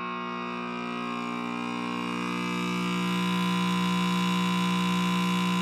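Late-1940s Trav-ler tube radio humming through its speaker as its loctal tubes warm up: a buzzing 60-hertz mains hum that grows louder over the first few seconds, then holds steady. Such hum is typical of the old electrolytic capacitors that are about to be replaced.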